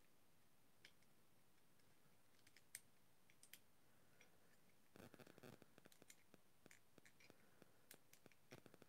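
Near silence, with faint small clicks and scratches from handling a small diecast model car while pressing its tiny exhaust part into place.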